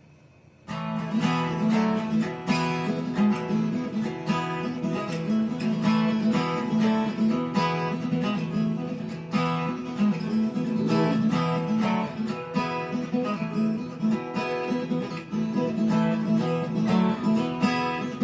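Acoustic guitar strummed in a steady rhythm, starting abruptly about a second in: the opening of a song before the singing comes in.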